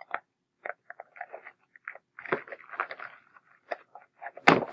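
Package being handled and opened, with irregular crinkling and crackling of the wrapping, a louder crackle near the end.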